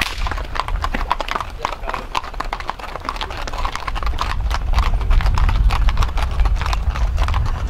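Hooves of several horses clip-clopping at a walk on an asphalt road, an irregular, overlapping run of clacks as the riders pass close by.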